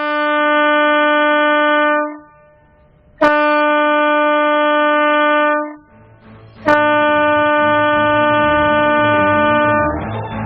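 A boat's horn sounding three long, steady blasts of the same pitch, each about three seconds, with short pauses between them.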